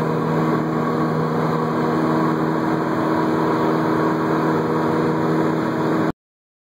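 Symphony SA160's four-cylinder Lycoming piston engine and propeller droning steadily, as heard inside the cabin in flight. The sound cuts off abruptly near the end.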